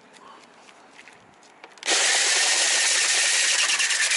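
Homemade sander, a corded electric drill fitted with a sanding disc, starting suddenly about two seconds in and then running steadily as it grinds the hard cured epoxy surface of an FRP boat hull.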